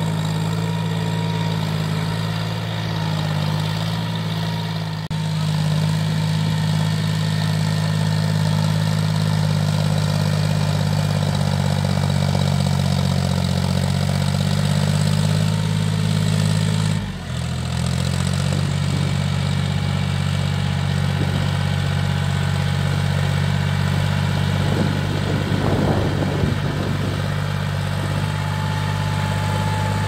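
John Deere 5045D tractor's three-cylinder diesel engine running steadily as it pulls a tine cultivator through wet paddy soil, with a brief break about 17 seconds in.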